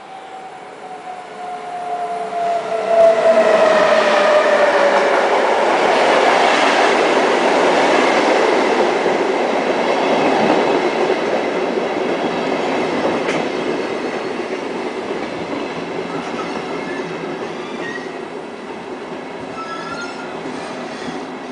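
SBB electric locomotive and passenger coaches passing along the platform. A whine falls in pitch over the first few seconds as the locomotive goes by, then the coaches' wheels and running gear rumble past, slowly fading.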